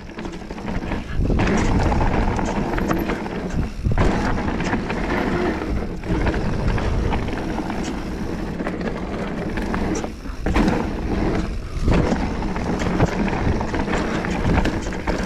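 Mountain bike descending a rough trail: knobby tyres rolling and skidding over rock and roots, with frequent knocks and rattles from the bike over bumps. The noise drops away briefly a few times.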